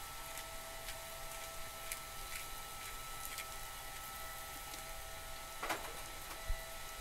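Steady hiss and faint whine of a BBQ Dragon's small electric blower fan running, forcing air into the lump charcoal under steaks that are sizzling on the grate. A few faint ticks, with a short cluster of clicks a little over five seconds in.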